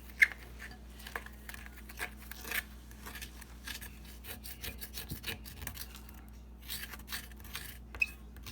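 Dry bath bomb powder being stirred and scraped around a bowl, in irregular rasping strokes, with one sharp knock against the bowl near the start.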